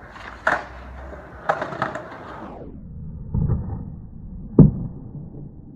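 Skateboard wheels rolling on asphalt with a few sharp clacks, the rolling cutting off about two and a half seconds in as the board leaves the ground. Low thuds follow, then a single loud, sharp impact about four and a half seconds in as the board and skater come down.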